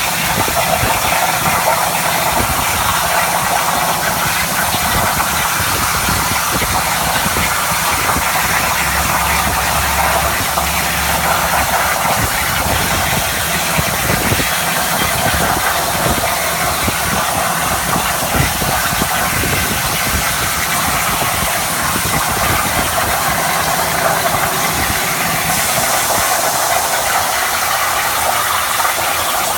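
CNC plasma cutter cutting: a steady hiss from the plasma torch over a low machine hum.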